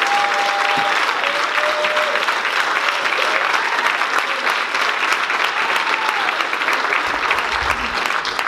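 Congregation applauding, a dense steady clapping, with a few voices calling out over it in the first few seconds.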